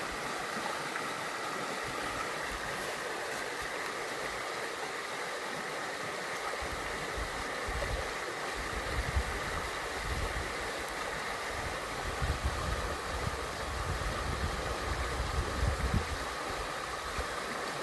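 Steady rushing noise of running water, with irregular low thumps and rumbles joining in from about seven seconds in.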